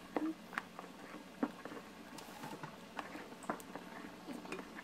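A spatula folding beaten egg whites and yolks in a ceramic bowl: irregular soft clicks and scrapes against the bowl.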